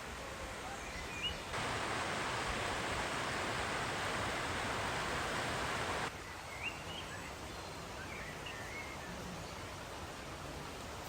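Outdoor nature ambience: a steady even noise that gets louder from about one and a half to six seconds in, starting and stopping abruptly, with a few short bird chirps.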